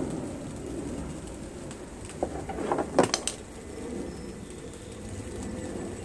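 Steady rain falling, with a brief cluster of sharp clicks and knocks about two to three seconds in.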